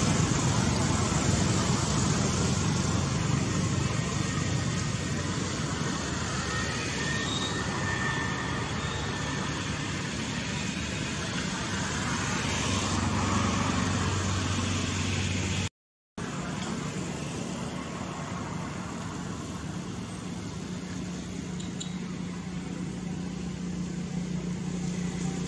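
Steady outdoor background noise with a low motor-like hum that grows stronger near the end. The sound cuts out for a moment about two-thirds of the way through.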